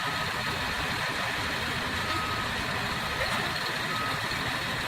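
Diesel engine of heavy earthmoving machinery running steadily, with a backup alarm giving a few short, spaced beeps over it.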